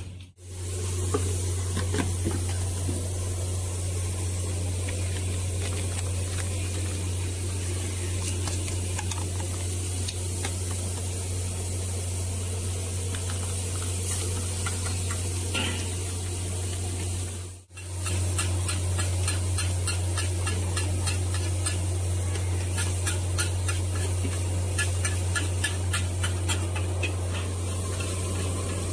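Rice vermicelli stir-frying in a large wok: a steady sizzle and hiss over a low hum. In the last third come rapid scraping clinks of the metal spatula against the wok. The sound drops out briefly twice.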